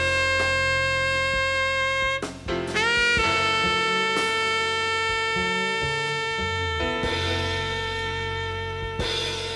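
Jazz quartet recording with a saxophone playing long sustained notes over bass. One note holds for about two seconds; the next is bent up into pitch and held for about six seconds.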